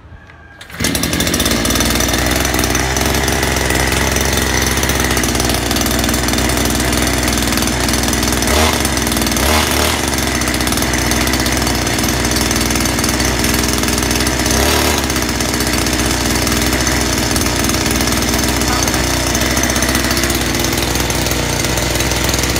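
Mitsubishi TB43 two-stroke engine on a push-type brush cutter, pull-started cold with the choke one-third open, catching about a second in and then running loudly and steadily.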